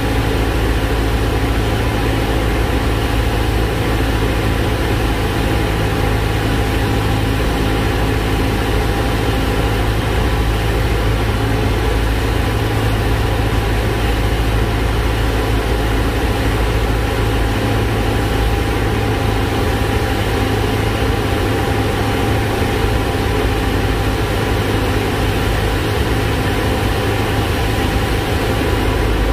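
Cessna 172's piston engine and propeller running steadily, heard from inside the cockpit on final approach.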